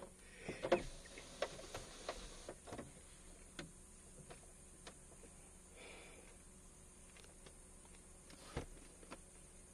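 Tiger feeding on a gaur carcass: faint, irregular clicks and crunches of chewing and tearing, most frequent in the first few seconds. One louder thump comes about two-thirds of the way in.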